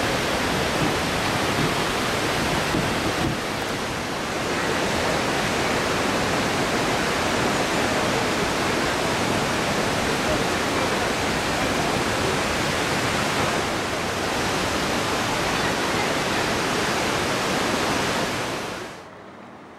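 Large waterfall plunging into a rocky gorge: a loud, steady rush of falling water that cuts off suddenly near the end.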